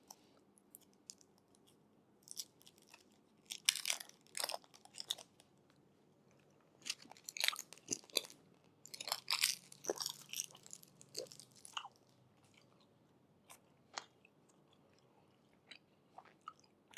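Crinkly rustling and light clicks from things being handled by hand, in irregular bursts with pauses between, thinning out to a few single ticks near the end.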